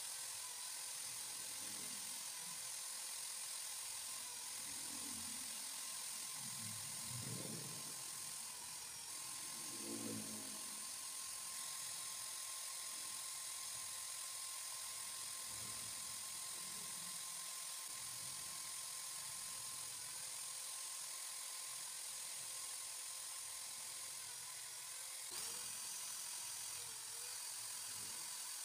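Electric drill running steadily at speed with a constant whine, spinning a sandal-foam fishing-float blank while sandpaper wrapped on a PVC pipe is pressed against it to shape it.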